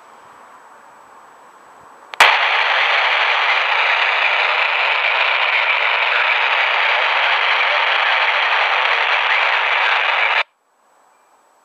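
Baofeng UV-3R handheld radio tuned to the ISS downlink on 145.800 MHz: the FM squelch opens with a click about two seconds in and the speaker gives a loud, steady static hiss with no voice for about eight seconds, then cuts off abruptly as the squelch closes.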